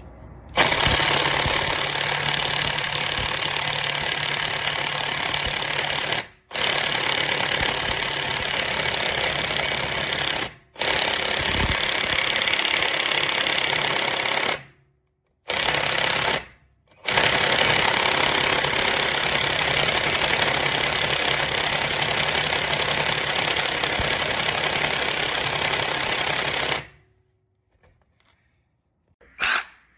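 Cordless brushless impact wrench (AVID Power 20V, 1/2-inch) hammering in long bursts, with short pauses when the trigger is let off: about six and ten seconds in, and twice around fifteen to seventeen seconds. It stops near the end, leaving a few short clicks.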